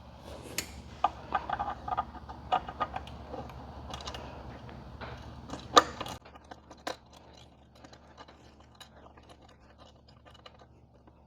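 Small metal clicks and clinks of an M10 bolt and washer being handled and threaded by hand into a luggage-rack leg, with a few sharper clicks; it grows fainter and sparser about halfway through.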